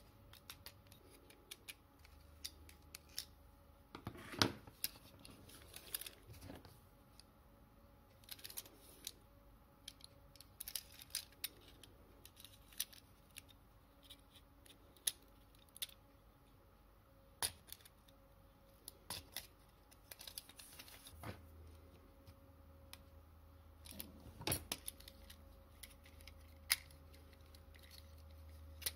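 Scattered small metallic clicks and clinks as a tin toy car's sheet-metal chassis, wheels and axles are handled and worked apart with pliers.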